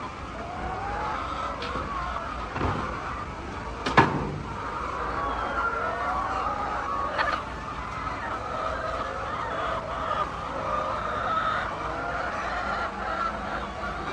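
A flock of laying hens clucking and calling over one another, with a sharp knock about four seconds in and a fainter one about seven seconds in.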